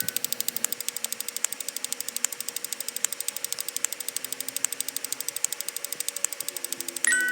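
Rapid, even ticking sound effect of a running number counter, about ten ticks a second, with a bright ringing ding near the end.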